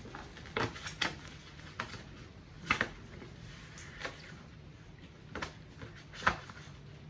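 Scattered sharp clicks and knocks, about seven at uneven intervals, over a faint steady low hum.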